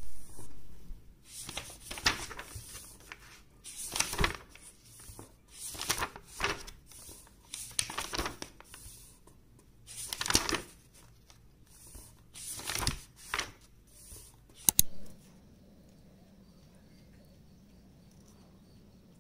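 Paper rustling from the pages of a record book being turned and handled, in irregular bursts every second or two with a couple of sharp clicks; it stops about fifteen seconds in, leaving a faint steady hum.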